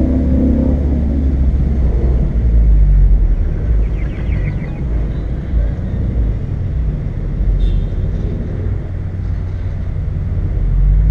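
Car engine and road noise while driving slowly: a steady low rumble.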